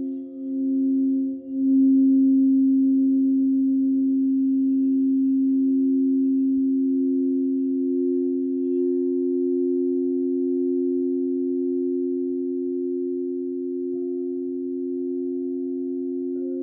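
Crystal singing bowls, tuned to 528 Hz, ringing together as several layered sustained tones. They pulse and swell over the first second and a half, then settle into a steady ring that slowly fades, with two faint taps near the end.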